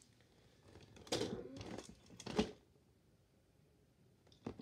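Rustling and scraping of fidget toys being handled, with a sharp knock about two and a half seconds in.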